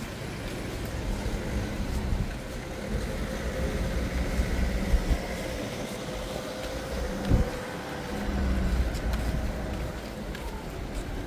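Engine hum of a passing motor vehicle, swelling for a few seconds and then fading, over steady low outdoor rumble; a short thump sounds about seven seconds in.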